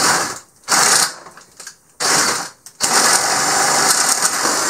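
DeWalt Atomic 20-volt brushless drill boring a 7/8-inch hole in a pine 2x4 with a spade bit. It runs in three short bursts, then is held on steadily for about two and a half seconds near the end. It is still running at full speed on a battery that has drilled nearly 100 holes without recharging.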